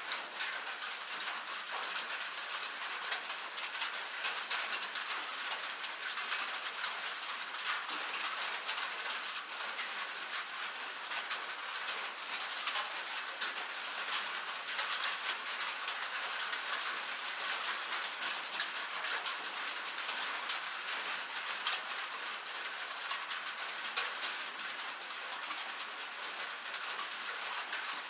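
Steady rain pattering on a metal roof: a dense, even stream of small sharp drop ticks, with no deep rumble.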